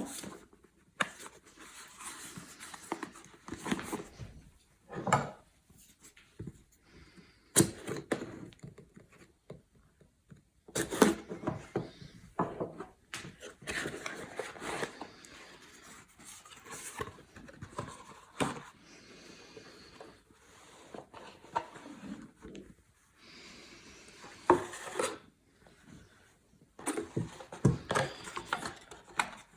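Packaging being handled and opened by hand: irregular rustles, scrapes and sharp knocks of cardboard and wrapping.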